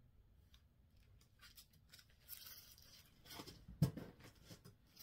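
Paper and plastic packaging rustling as cross-stitch patterns in clear sleeves are handled, starting about a second in, with one sharp thump just before four seconds in, the loudest sound.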